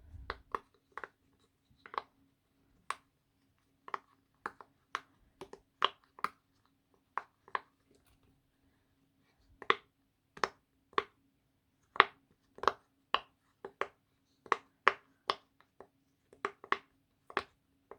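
Flower-shaped pop-it fidget toy having its bubbles pressed through one at a time: a string of short, sharp pops at an uneven pace, with a pause of about two seconds midway.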